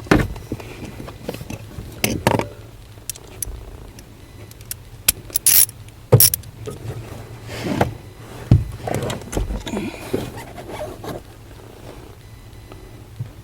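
Irregular clunks and knocks over a steady low engine hum: a Toyota Highlander's worn intermediate steering shaft clunking as the steering is turned.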